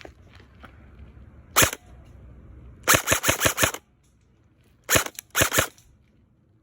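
Airsoft gun firing close by: a single shot about a second and a half in, then a rapid burst of about half a dozen shots, then two short bursts.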